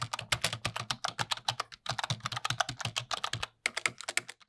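Computer-keyboard typing sound effect: a rapid run of key clicks with a short break about three and a half seconds in, set to text being typed out on screen.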